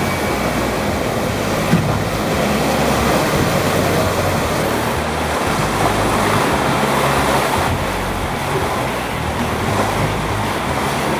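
Wind buffeting the microphone over the steady rush of rough sea past a sailing catamaran's hulls.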